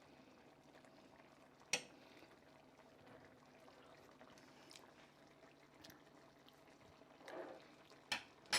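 Faint simmering of a tomato-based sauce in a skillet, with a sharp click about two seconds in and two more near the end.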